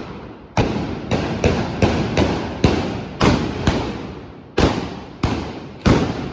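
Trabucaires' blunderbusses (trabucs) firing blank black-powder charges in a galejada: about eleven loud shots in quick, irregular succession, each with an echoing tail.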